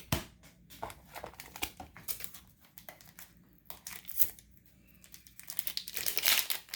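Crinkling of a plastic booster-pack wrapper being handled, with scattered light clicks of cards, growing denser and louder near the end.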